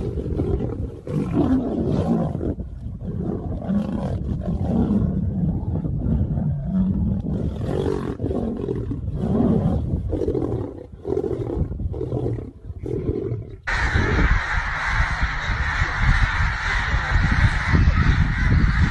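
Lions growling and roaring in a scuffle, in short irregular bouts. About fourteen seconds in it cuts suddenly to chickens squawking in a fight over a steady harsh hiss.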